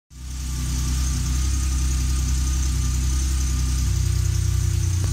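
Car engine idling steadily: a low, evenly pulsing rumble that rises quickly out of silence at the start.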